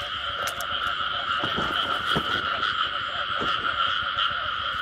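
A dense, continuous chorus of many frogs calling, the breeding chorus after the season's first rain. A few single lower calls stand out over it, each dropping in pitch.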